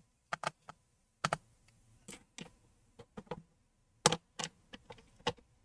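About a dozen small, irregular clicks and taps of repair tools against the laptop's parts and screws as a MacBook Air is taken apart.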